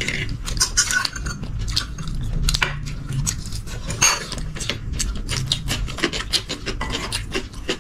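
Eating at the table: a steady run of small clicks, clinks and scrapes of cutlery against plates and dishes.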